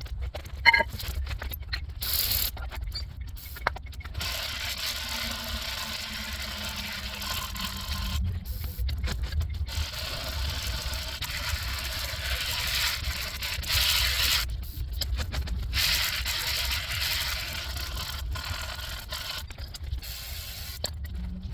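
Scraping, mechanical work noise from a car's rear brake job, in long noisy stretches that start and stop abruptly over a steady low rumble.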